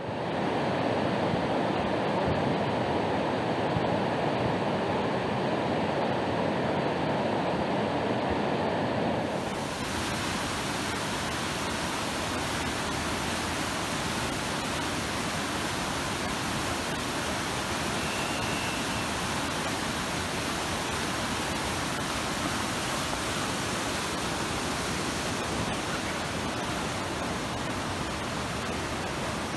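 Whitewater river rapids rushing steadily. About nine seconds in the sound changes abruptly from a heavier, lower rush to a brighter hiss.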